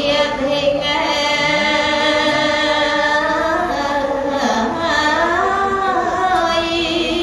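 A woman singing Khmer Buddhist dharma chant (thor sangvek) unaccompanied into a microphone. She holds long, drawn-out notes, lifts the melody in an ornamented turn about halfway through, and ends on a wavering held note.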